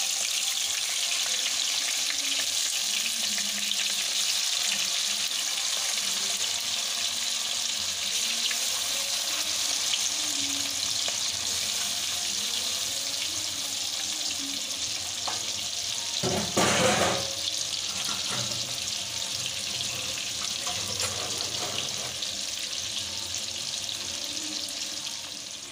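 Hilsa fish steaks sizzling steadily in hot mustard oil in a kadai. A brief louder burst comes about two-thirds of the way through.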